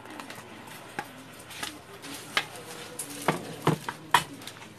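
Light knocks and taps of a broad kitchen knife against a chopping board and a plastic tub as chopped chilies are scraped off the blade, about six scattered clicks.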